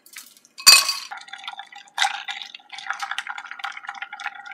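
Ice cubes dropped into a glass mixing glass, with a loud clatter about a second in and again at two seconds. The ice is then stirred with a metal bar spoon: quick, steady clinking of ice against the glass, which rings.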